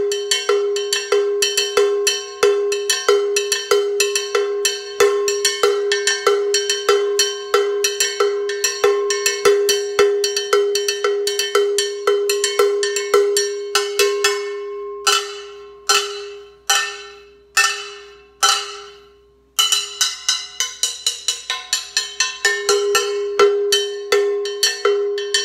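Latin Percussion ES-9 Sergio Bongo cowbell (bongo bell) struck with a wooden stick in a fast, steady rhythm, each hit ringing at one pitch. About fifteen seconds in it slows to single strokes about a second apart that are left to ring and die away. Then the fast rhythm resumes.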